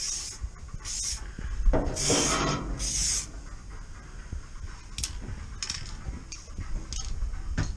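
Aerosol can of primer sprayed in short bursts onto bare floor panels: several half-second hisses in the first three seconds, then shorter quick puffs.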